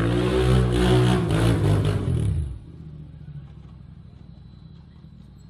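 ATV engine revving hard on a steep hill climb, its pitch rising and then falling, then cutting off sharply about two and a half seconds in. A faint low engine hum remains after that.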